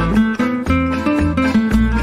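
Background music led by plucked guitar over a bass line that changes note about every half second.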